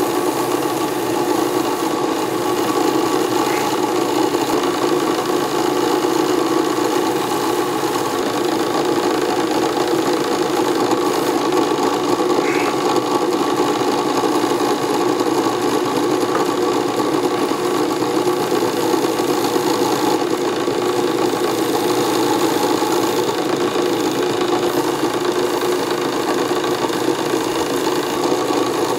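Benchtop drill press running steadily, spinning a purpleheart screwdriver handle while a paper towel is held against it to rub on a CA-glue finish.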